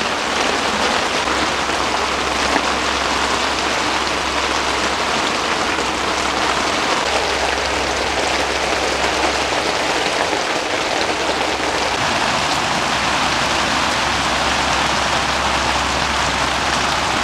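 Heavy rain falling steadily on a one-touch hub tent, heard from inside the tent as a dense, even patter.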